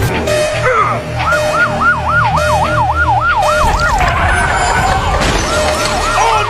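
Siren in a fast yelp, a rapid run of falling sweeps at about three or four a second. It fades for a second or two in the middle and comes back strongly near the end.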